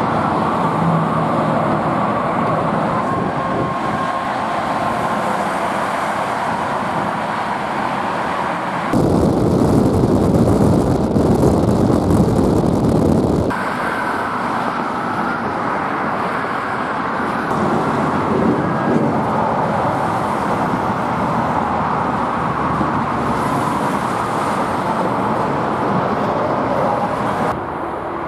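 Highway traffic noise: cars passing on an expressway, a steady rushing hum. The sound shifts abruptly a few times, with a louder, deeper rumble for several seconds starting about nine seconds in.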